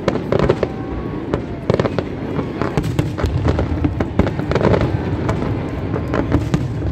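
Aerial fireworks bursting in quick succession: a nearly continuous string of sharp bangs and crackles, loud throughout.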